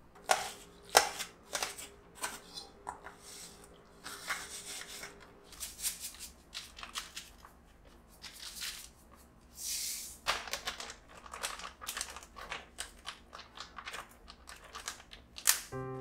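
Kitchen handling sounds: watermelon flesh pressed through a stainless mesh sieve, then a plastic zip-top freezer bag of watermelon juice crinkling as it is handled and zipped shut, a quick string of clicks and rustles.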